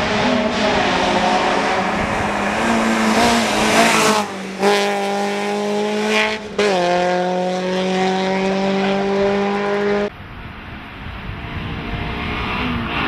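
Peugeot 205 Mi16's 16-valve four-cylinder engine running hard at high revs as the car climbs the hill at racing speed. The note breaks off briefly twice, about four and six and a half seconds in, with the gear changes, and turns duller and quieter about ten seconds in.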